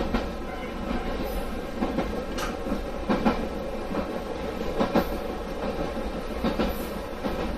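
Ichibata Electric Railway 2100 series electric train running along the track, heard from inside the driver's cab: a steady low running noise, with the wheels clacking over rail joints every second or two.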